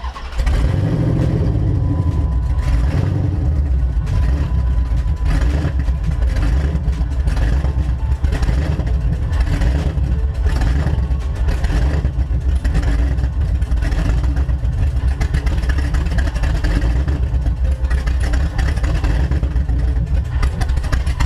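2006 Dodge Charger's 5.7L Hemi V8 starting and running loud and steady, then shutting off at the end.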